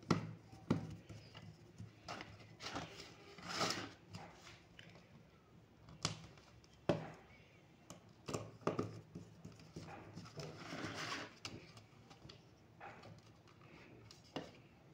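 Hand screwdriver driving small screws into the metal back cover of a 12-watt 6-inch LED panel light, with irregular clicks, scrapes and knocks as the screws turn and the housing is handled.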